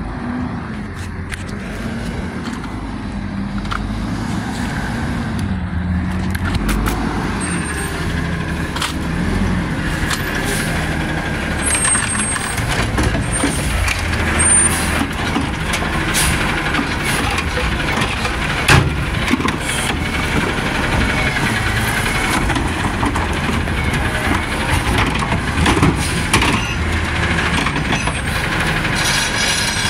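Automated side-loader garbage truck's engine revving hard and fast, growing louder over the first few seconds, with brief high squeals and a few sharp clanks.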